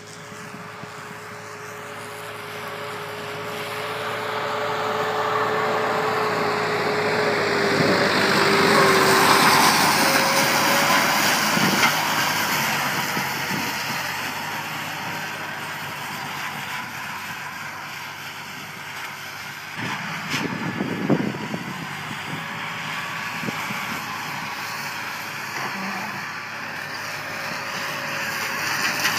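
Massey Ferguson 260 tractor's diesel engine running steadily under load as it pulls a mounted grass mower through the field. It grows louder as it passes close, peaking about nine seconds in, its note dropping slightly in pitch, then fades again. A brief clatter comes about 21 seconds in.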